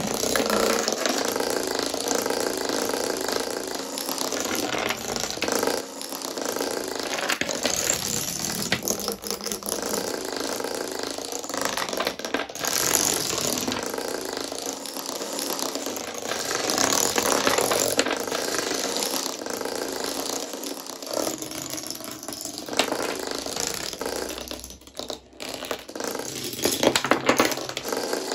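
A long chain of small painted wooden dominoes toppling one after another: a rapid, continuous clatter of wood on wood, with a few louder clacks near the end.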